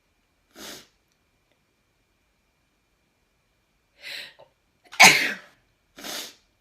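A person sneezing: a soft breath about half a second in, a drawn breath around four seconds, then one loud, sharp sneeze just after five seconds, followed by a quieter breathy sound.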